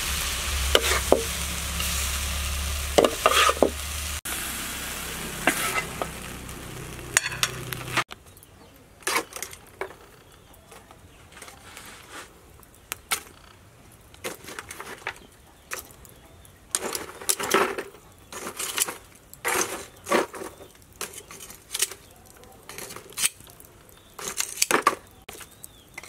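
Metal spatula stirring and scraping food in a sizzling metal wok, with repeated scrapes, for about the first eight seconds. Then the sound drops suddenly to scattered small clicks and taps.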